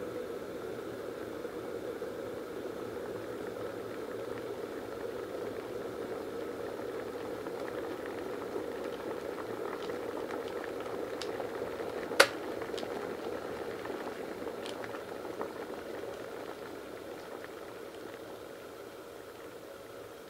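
T-fal Justine+ electric kettle boiling a full 1.2 L of water: a steady rushing bubbling. About twelve seconds in comes a single sharp click, typical of the kettle's automatic switch-off at the boil. Afterwards the boiling slowly dies down, with a few small ticks.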